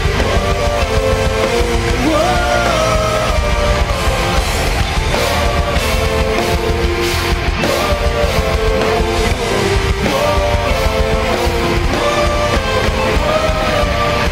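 Metalcore band playing live through a loud PA: distorted electric guitars and drums in an instrumental passage, with a melodic lead line moving over them.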